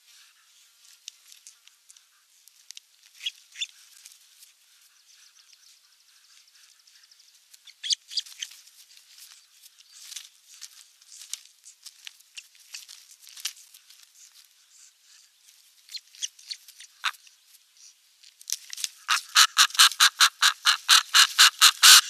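Scattered faint clicks and short chirps from the nest. Then, about three-quarters of the way in, a high call starts and repeats rapidly, about four times a second, and becomes loud: the alarm calling of osprey chicks under attack by a raven.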